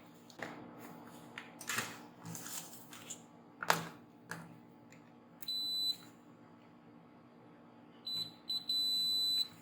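Digital multimeter continuity beeper sounding as test probes touch points on a power-supply circuit board: one half-second beep about halfway through, then a few short chirps and a beep of about a second near the end, signalling a connection between the probed points. Light clicks and taps of the probes and handling come before it.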